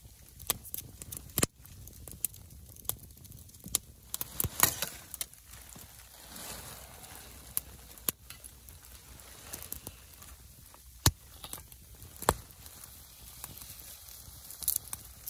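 Wood fire crackling in a small titanium firebox stove, with scattered sharp pops and clicks, a few of them much louder than the rest.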